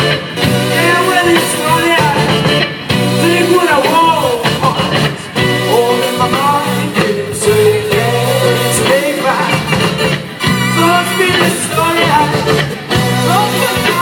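Live amplified rock band playing: a man singing lead over electric guitar, bass, keyboard and drums, with a steady rhythmic bass line underneath.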